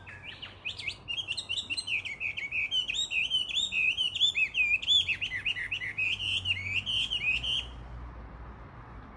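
Chinese hwamei singing a long, fast, varied song of rich, rapidly changing whistled phrases that stops suddenly about a second and a half before the end.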